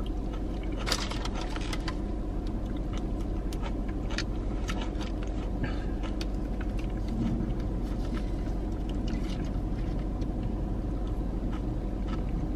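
Steady low hum of a car running, heard from inside the cabin, with faint scattered clicks of a plastic fork against a plastic tub of potato salad.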